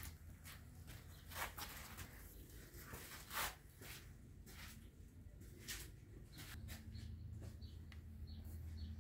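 Scattered light knocks and clicks of handling, then a gas brazing torch flame burning with a low steady rumble that builds from about six and a half seconds in, heating the freezer's knife-pierced tubing to drive off any oil or water before brazing.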